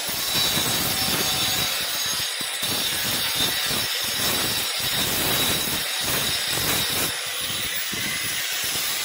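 Angle grinder running and cutting, a steady grinding noise with a thin high whine and brief dips every second or two as the disc bites and eases off.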